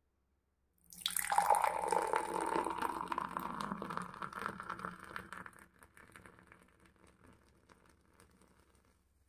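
Fizzy malt drink poured in a stream into a glass, splashing and foaming up. It starts about a second in, is loudest at first, and fades away after about five seconds.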